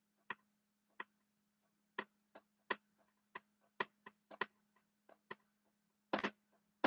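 Dry-erase marker writing on a whiteboard: a string of short, uneven ticks and scratches as letters are written, with a louder cluster of strokes about six seconds in.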